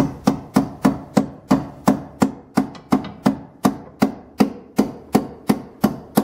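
Hammer tapping steadily on metal at a brake hose fitting, about three sharp blows a second, each with a short ring, to drive the fitting tight.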